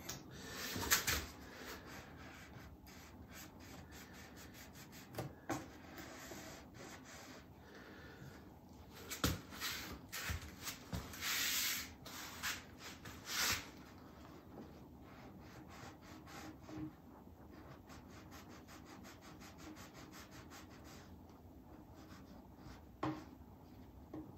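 Quiet, intermittent scraping and rubbing at the bridge of an acoustic guitar as glue squeeze-out is cleaned off and masking tape is pulled away, in short scratchy strokes with a longer hissy stretch about halfway through. A few light knocks come about 5 s in, about 9 s in, and near the end.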